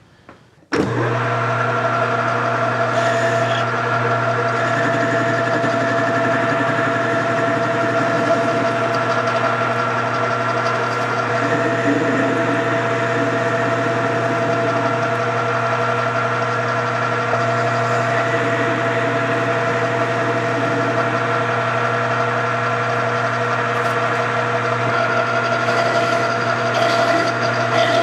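Metal lathe switched on about a second in, then running steadily with a constant hum while a cutting tool turns down a spinning aluminium part.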